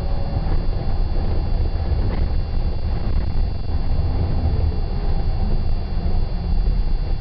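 Steady low rumble of a moving bus, its engine and road noise heard from inside the passenger deck.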